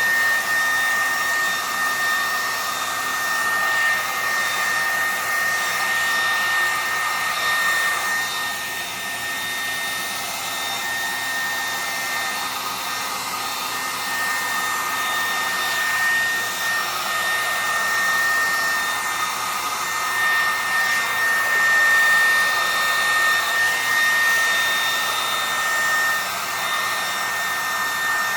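Handheld hair dryer blowing steadily, a loud rushing hiss with a high motor whine, getting a little louder and softer as it is moved around.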